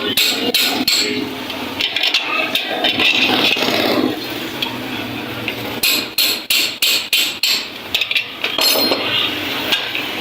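Hammer blows on the refrigerator cabinet's sheet metal during patch repair. Scattered knocks come first, then a quick run of about eight strikes a little over halfway through.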